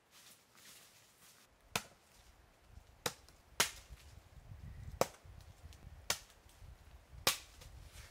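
A blade chopping: six sharp, irregularly spaced strikes, with a low rumble underneath in the second half.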